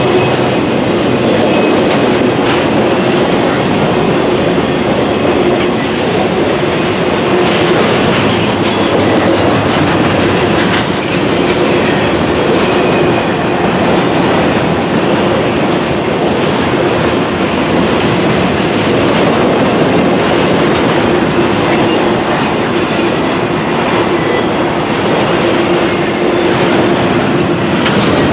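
Cars of a double-stack intermodal freight train rolling past: a steady, loud rumble of steel wheels on rail with a droning tone underneath and scattered clicks as wheels cross rail joints.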